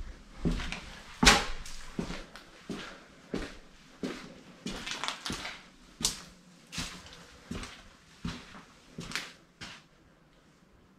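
Footsteps walking over a tiled floor scattered with debris, a step about every 0.7 seconds, with one louder knock about a second in; the steps stop near the end.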